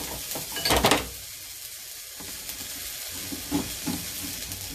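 Tapioca pizza sizzling in a non-stick frying pan on the stove burner, a steady hiss. A short clatter of dishes about a second in, and a few soft knocks near the end as a spatula goes into the pan.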